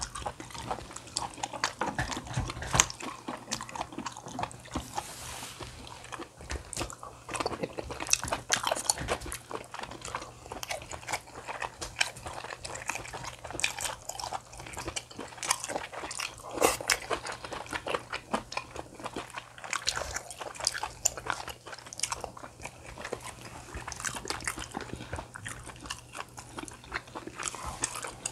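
Close-miked eating: a person chewing and biting into food, with irregular crunches and clicks all the way through.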